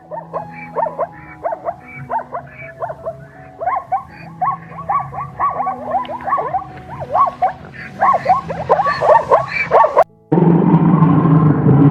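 Rapid series of short animal calls, each falling in pitch, several a second and getting louder, over background music. About ten seconds in they cut off abruptly and a loud, dense rumbling noise takes over.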